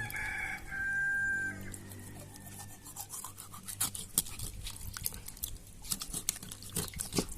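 A rooster crows once, about a second and a half long, at the start. Then comes a run of sharp irregular knocks from a cutlass chopping chicken on a board, over a steady low hum.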